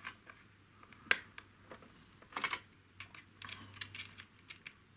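Light clicks and ticks of small hand-handled parts as the spindle lock button of a Proxxon FBS 240E mini drill is pressed and its collet head unscrewed: one sharper click about a second in, a pair of clicks halfway through, then scattered faint ticks.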